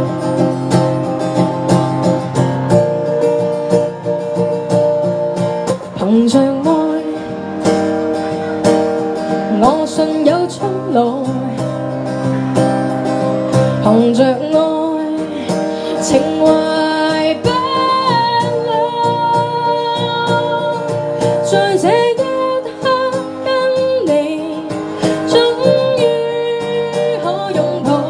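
A woman singing a Cantonese pop ballad live, accompanying herself on a strummed acoustic guitar. The guitar plays alone at first, and the voice comes in about six seconds in.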